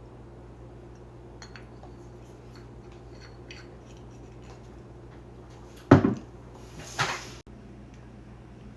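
Kitchen handling sounds while hot sauce is being added to a fajita: light clicks and taps, then a loud knock about six seconds in and a short hissing burst that cuts off abruptly.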